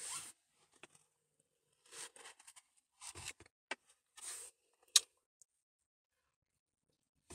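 Metal spoon scooping ice cream from its container: a few short scrapes, and one sharp click about five seconds in.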